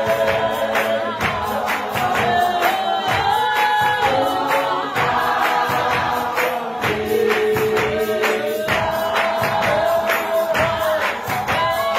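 A large choir singing in harmony, long sustained notes over a steady beat.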